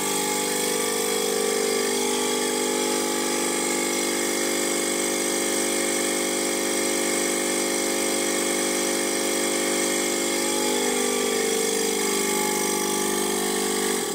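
DWM Copeland semi-hermetic reciprocating compressor running steadily, its three-phase motor fed from 240 V single phase through run capacitors. It makes an even, many-toned hum with mechanical clatter over it.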